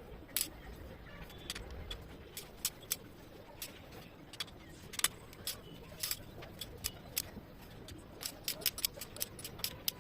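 Sharp metallic clicks and taps of hand tools working on the engine's cylinder head, scattered at first and coming quickly, several a second, near the end.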